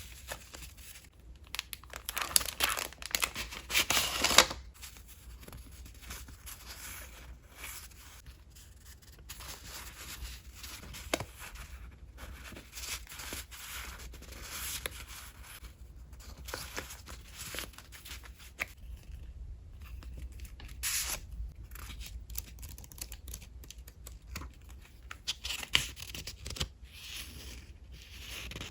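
Paper goods being handled and torn by hand, with rustling and crinkling between the tears. The longest and loudest tearing comes from about two to four and a half seconds in, with shorter rustles and tears later.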